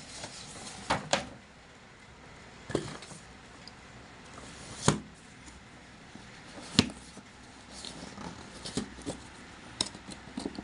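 Hands handling a paper shopping bag and a cardboard shoe box: faint rustling with several sharp taps and knocks spread through, one every second or two.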